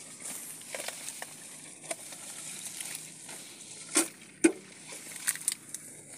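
Dry grass and stems rustling and crackling as hands work through dense vegetation, with two sharp knocks about four seconds in, half a second apart.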